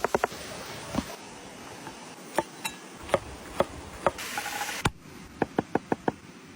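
Scattered sharp knocks, with a short burst of hissing noise a little past the middle and four quick knocks near the end.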